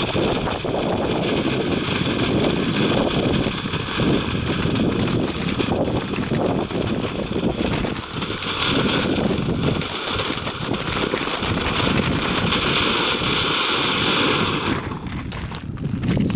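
A small firework hissing and spraying sparks as it burns, the hiss strongest from about the middle and stopping abruptly near the end, over loud wind buffeting the microphone.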